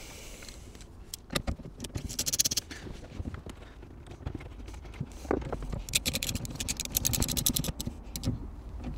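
Ratchet spanner clicking in quick runs as the nut on a car battery's terminal is tightened, a short run about two seconds in and a longer one from about six seconds, with a few knocks of the tool and connector between.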